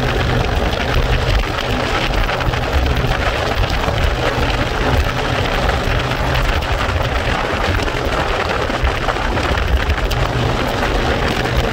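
Steady wind rush over the microphone mixed with motorcycle engine and road noise while riding at speed.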